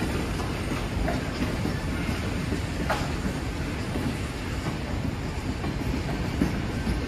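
Heritage wooden passenger carriages rolling past with a steady rumble, their wheels clacking over the rail joints; one sharper clack about three seconds in.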